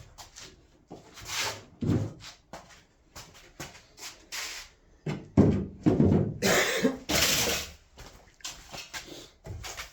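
Irregular knocks, thuds and scraping from parts being handled, with a dull thump about two seconds in and the loudest scrapes and clunks between about five and eight seconds in.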